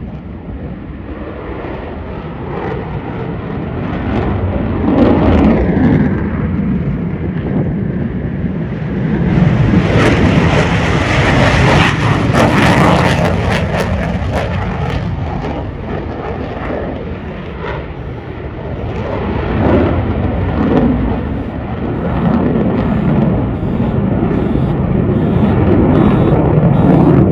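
F-22 Raptor's twin jet engines heard from the ground as the fighter climbs away: a loud, rumbling jet noise that swells to its loudest and brightest from about ten to fifteen seconds in, eases off, then builds again near the end.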